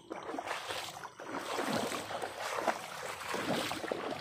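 Shallow water sloshing and splashing unevenly as someone moves through a flooded field of straw stubble.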